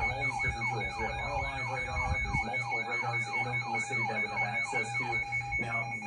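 Electronic siren sounding in quick rising-and-falling sweeps, about three a second, over steady pulsing high beeps.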